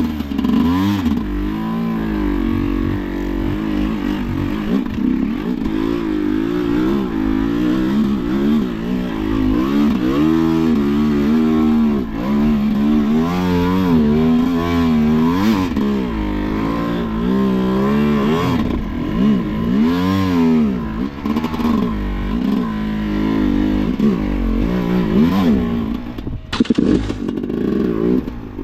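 Sherco enduro motorcycle engine running under riding load, revving up and down repeatedly as the throttle opens and closes. It drops away briefly near the end, then picks up again.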